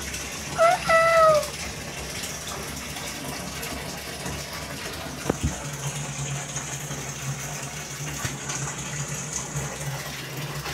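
A Persian cat meowing once, about half a second in: a short call that falls in pitch. A steady rushing noise runs underneath, and a low hum comes in about halfway through.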